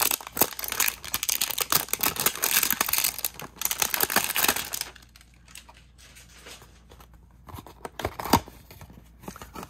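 Packaging of a Pokémon trading-card mystery box being torn open and crinkled by hand. It is a dense crackle for about five seconds, then quieter rustling with a sharp tap near the end.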